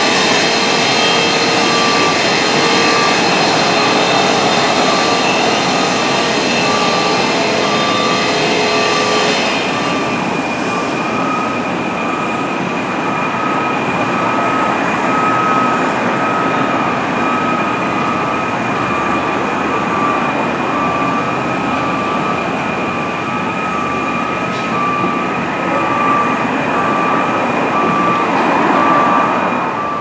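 Loud, steady machinery and traffic noise with a repeating electronic beep running through it. A high steady whine changes to a different, higher tone about ten seconds in.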